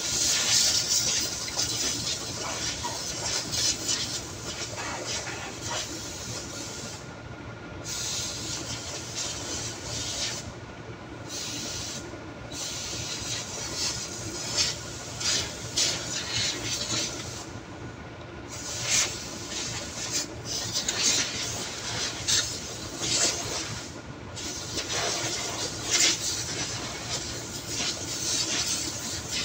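Steady hiss with a low hum and a thin, steady high whine running under it, with scattered small handling knocks.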